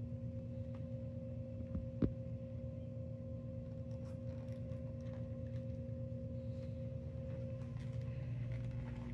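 A steady low hum with a constant tone over it, like machinery or appliance hum in a room, and one sharp click about two seconds in, with a few faint ticks later.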